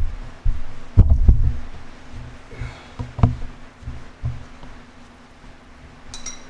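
Deep, dull thuds, about two a second at first, then sparser and fainter, with a few sharper knocks among them, over a steady low hum.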